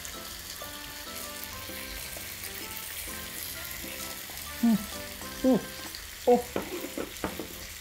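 Thin-sliced beef sizzling on a hot grill, with fat spattering steadily. In the second half come three short hummed "mm" sounds of relish while chewing.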